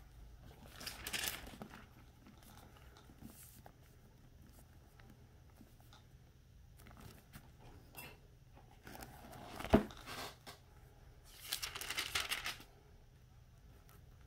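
Faint rustling and crinkling handling noise in three short bursts, with a single sharp click near the middle, the loudest sound.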